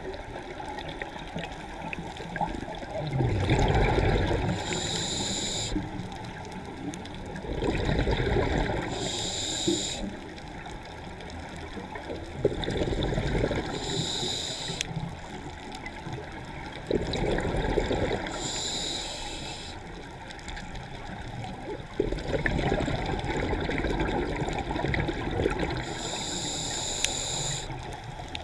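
Scuba regulator breathing underwater: a short hissing inhale every four to five seconds, each followed by the low gurgling rumble of exhaled bubbles.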